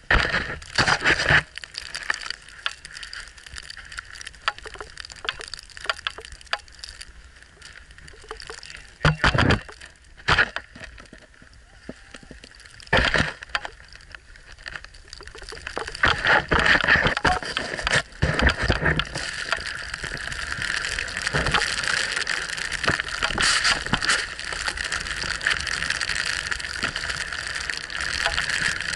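Snowboard sliding and scraping over snow, heard as a hiss that grows into a steady, louder rush from about halfway on. Before that there are a few loud knocks and scuffs.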